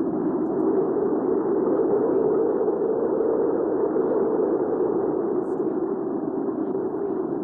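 Recorded hurricane wind ambience: a steady low rushing of wind that swells a little in the middle and then eases.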